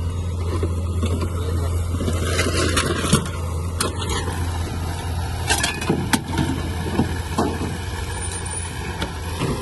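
A vehicle engine running steadily, with a scattering of sharp knocks and clanks over it, most of them in the middle stretch.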